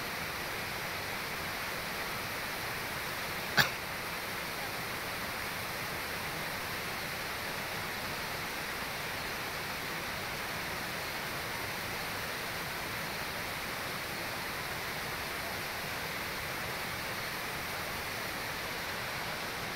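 Steady rush of flowing water, with a single sharp click about three and a half seconds in.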